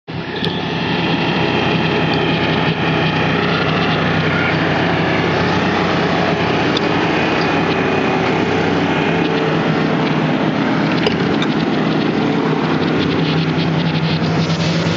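CAT 313DL excavator's diesel engine running steadily, with a few faint clicks.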